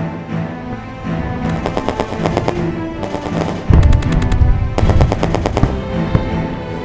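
Music playing throughout, cut through by several runs of rapid, machine-gun-like rattling and a heavy low boom about four seconds in.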